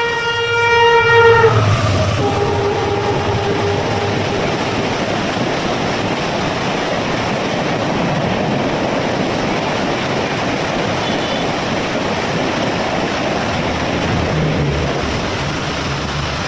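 Diesel locomotive horn sounding a long blast that ends about a second and a half in, followed by a shorter, lower note. Then the train passes at speed with a steady loud rush of wheels and coaches on the rails.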